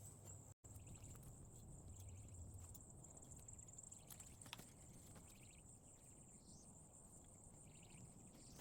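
Near silence: faint outdoor ambience with a steady high insect drone, a few faint chirps, and a single light click about four and a half seconds in.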